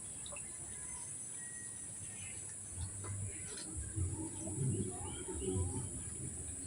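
Small birds chirping in short, scattered calls over a steady high-pitched hiss. Low rumbling and knocking noises come in from about halfway through.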